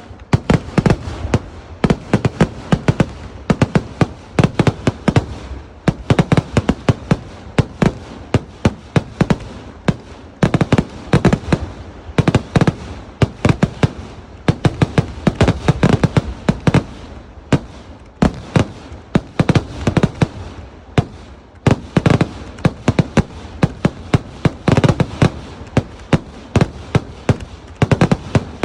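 Kerala temple-festival fireworks (vedikkettu): a dense, unbroken barrage of loud firecracker bangs, several a second, coming in surges over a continuous rumble.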